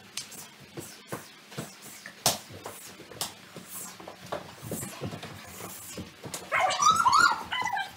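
Dog whining and yelping in play, with scattered clicks and knocks through it. Near the end comes a louder run of high, wavering yelping whines lasting about a second.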